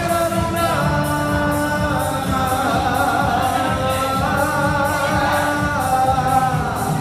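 Italian pop song: a voice holding long sung notes with some vibrato over a band backing with a steady beat.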